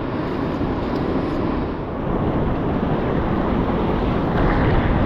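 Rough surf rushing on the shore, with wind buffeting the microphone; the rush swells louder near the end.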